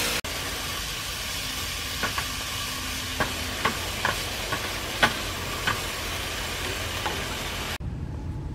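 Eel and greens sizzling in a nonstick frying pan as they are stir-fried, with a steady hiss and a series of sharp knocks of the spatula against the pan. The sizzling stops abruptly near the end.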